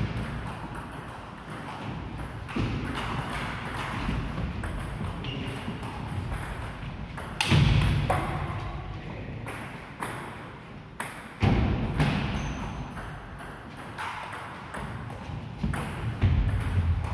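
Table tennis ball clicking off bats and table in rallies, the hits ringing in a large sports hall. A few heavier thuds stand out among the clicks.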